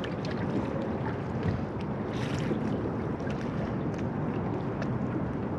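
Wind on the microphone and water lapping against a drifting fishing boat, a steady rushing noise with scattered light clicks and knocks.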